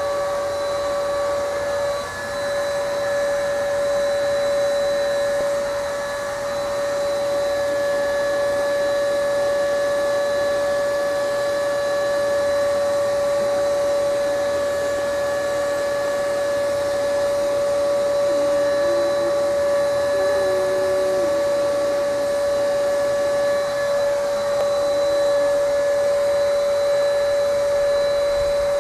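Electric paint sprayer running steadily with a high motor whine and a hiss of air, spraying paint onto a motorcycle frame.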